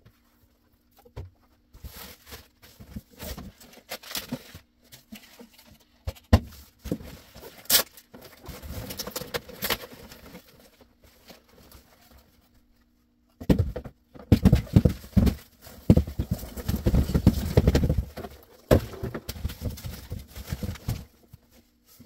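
Cardboard boxes and packing paper being handled: irregular rustling, scraping and small knocks, with a louder, denser stretch of handling in the second half.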